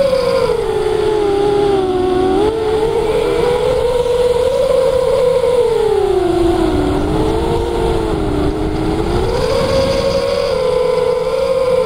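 RC plane's motor and propeller droning in flight, the pitch rising and falling slowly as the throttle and airspeed change, over a low rush of wind on the microphone.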